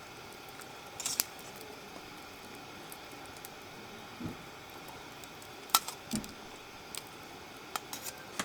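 Scattered light clicks and taps, loudest about a second in and again near six seconds, with two short dull thuds, over a faint steady hiss.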